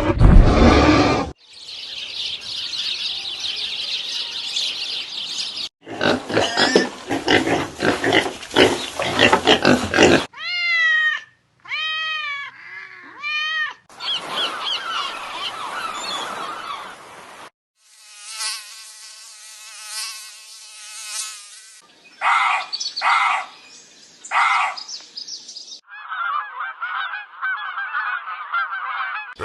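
A string of short animal-call clips, each a few seconds long, cut abruptly one after another. One has a run of repeated rising-and-falling calls; others are buzzing or hissing.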